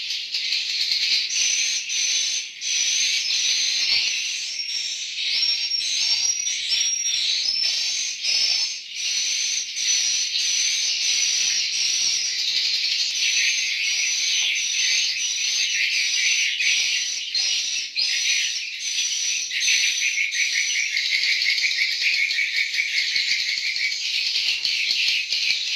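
Swiftlets twittering continuously: dense high chirps and buzzy rattling trills overlapping without a break.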